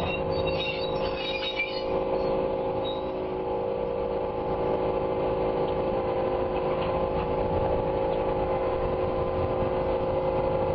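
Railroad crane car rolling slowly along the track with an engine running in a steady drone. A few short high squeaks come in the first two seconds.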